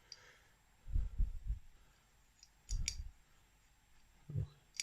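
A few light knocks and sharp clicks of small metal carburettor parts handled by hand, as a brass needle seat is pushed in and out of a two-stroke carburettor body.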